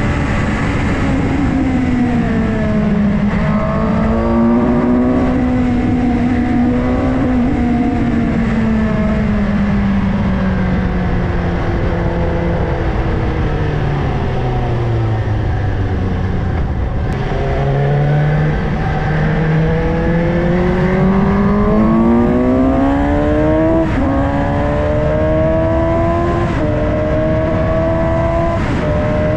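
Suzuki GSX-S750's inline-four engine under way, with steady wind rush: the engine note falls as the bike slows around the middle, then climbs again as it accelerates, with a few short breaks in the note near the end.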